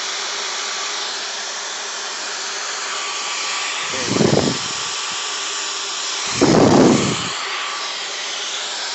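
Dyson V15 Detect cordless stick vacuum running steadily at full suction, a high, even whoosh of its motor and airflow. Two brief louder low bumps come about four and six and a half seconds in.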